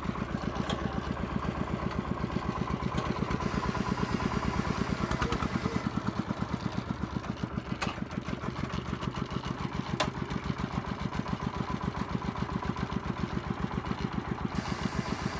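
Công nông farm cart's single-cylinder engine chugging with an even, fast putt-putt beat. A couple of sharp clicks sound in the second half.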